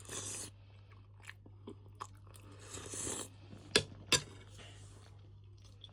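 A person eating mutton soup: short slurping sounds and chewing, with two sharp clicks close together about four seconds in.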